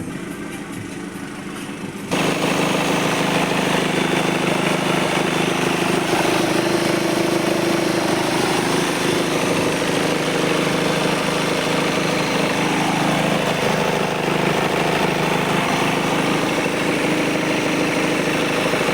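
VW Jetta 2.0 TDI four-cylinder turbodiesel idling steadily, running again after its faulty crankshaft timing gear was replaced. It becomes suddenly much louder about two seconds in.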